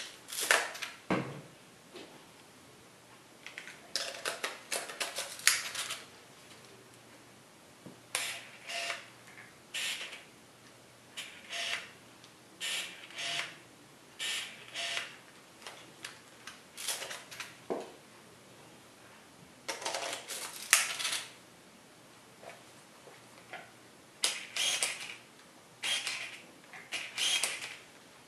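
Pentax K-01 camera autofocus driving the lens: short bursts of mechanical whirring and clicking, over and over in clusters every second or two.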